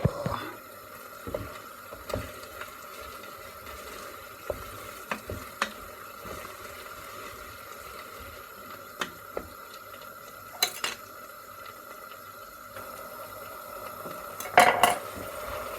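A spoon stirring a stew of green peas, potatoes and tomato sauce in a pot, with scattered light clinks against the pot and a few louder clanks, the loudest near the end. A faint steady hum runs underneath.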